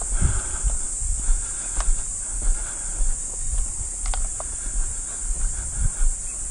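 Steady high-pitched chorus of insects, with a low rumble underneath and a few faint clicks.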